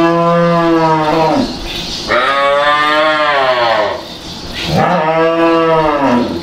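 Dairy cattle mooing: three long calls of about two seconds each, the middle one rising and then falling in pitch.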